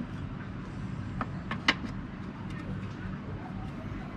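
A few sharp clicks and taps from handling a scooter's plastic body panels and tools: three short clicks a little over a second in, the last the loudest, over a steady low hum.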